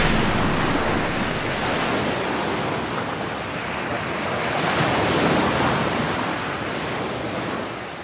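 Ocean surf: a steady rush of breaking waves that swells about five seconds in, then starts to fade near the end.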